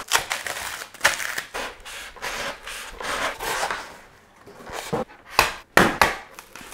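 Cured expanding foam being torn and cut away from a styrofoam panel: a run of crunching, rasping scrapes, with a few sharp cracks about five to six seconds in.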